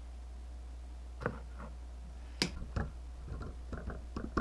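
A few small, sharp plastic clicks and taps from handling a DualShock 3 controller's parts and screws. The loudest click comes about two and a half seconds in, with a quick cluster near the end, over a steady low hum.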